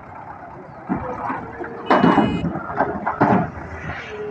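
Russian tractor's diesel engine running steadily while its front-loader bucket dumps broken bricks into a trolley: a loud clatter of tumbling brick rubble about two seconds in, and another crash a little over a second later.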